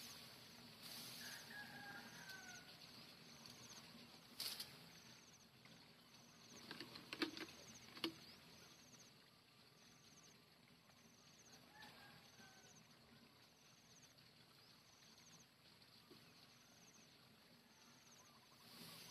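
Near silence: quiet rural outdoor ambience with a faint high chirp repeating at an even pace, a little more than once a second. A couple of faint calls sound near the start and again about twelve seconds in. A few sharp clicks or knocks come about four and a half seconds in and again around seven to eight seconds in.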